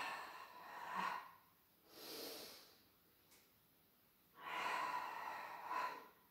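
A woman breathing audibly through a Pilates back-extension exercise. Two long, loud breaths out bracket a shorter, softer breath about two seconds in.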